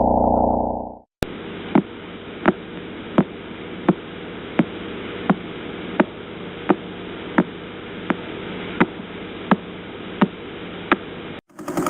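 Radio signal of a pulsar converted to sound: steady radio static with sharp, evenly spaced clicks, about one every 0.7 seconds, one click per turn of the spinning neutron star. A low droning tone cuts off about a second in, and the static stops just before the end.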